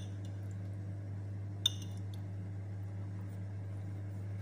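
A metal utensil clinks once, sharply and with a short ring, against a ceramic plate of rice about two seconds in, with a few faint utensil ticks around it. A steady low electrical hum runs underneath throughout.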